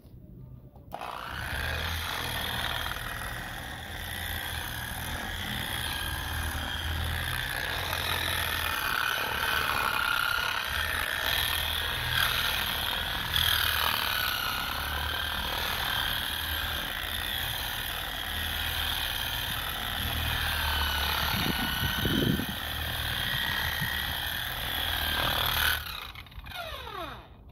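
Handheld electric polisher with a soft foam wax pad running against a boat's gelcoat hull. It starts about a second in and switches off near the end: a motor whine that wavers in pitch over a rough rattle, with a few knocks about three-quarters of the way through. The owner hears it as the tool falling apart, which he puts down to a hard drop.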